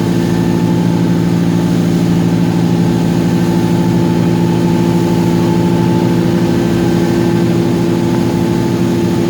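Boat engine running steadily at constant speed, a low even hum heard from on board.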